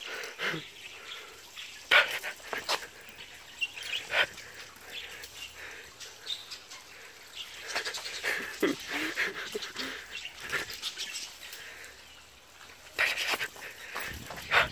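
Sounds of a small dog moving about, with a few short sharp sounds scattered through, the loudest about two seconds in.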